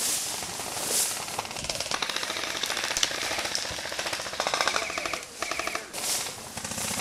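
Airsoft guns firing rapid full-auto bursts, several in a row, with the clearest run of quick, even pops about four and a half seconds in. Tall grass rustles against the microphone throughout.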